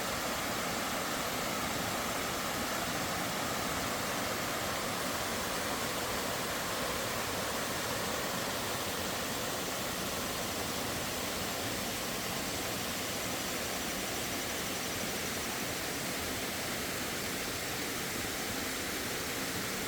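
Small creek waterfall, water falling and rushing in a steady, even hiss, with faint crickets chirping.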